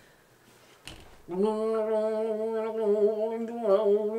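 A person imitating a didgeridoo with their voice, starting about a second in: a steady, unbroken low drone at one pitch, its buzzy upper tone shifting as the mouth changes shape.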